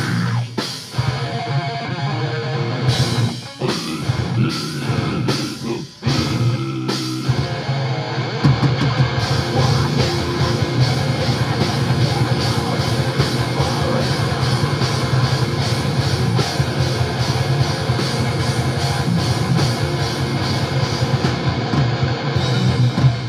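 Live heavy rock band playing electric guitar and drum kit, in stop-start hits with short breaks for the first several seconds, then running on without a break.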